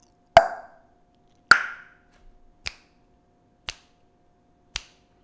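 Pops and finger snaps made up close to a condenser microphone: five sharp clicks about a second apart, the first two loudest with a short ring after them, the last three fainter and shorter.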